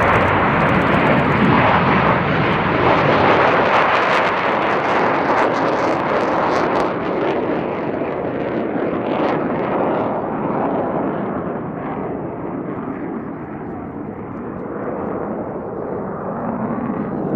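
McDonnell Douglas F-4EJ Phantom II fighters' J79 turbojets roaring at takeoff power as they lift off and climb away, with a crackle in the first several seconds. The roar then grows duller and quieter as the jet pulls away, swelling again near the end.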